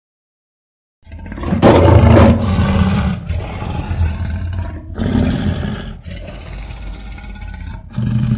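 Creature roar sound effect for a made-up tapir-elephant beast. After a second of silence a loud, deep, rough roar starts suddenly, and it swells twice more later on.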